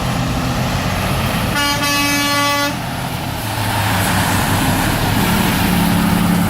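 A truck horn sounds once for about a second, a little under two seconds in, over the steady rumble of passing heavy truck traffic. A truck engine rises in level near the end.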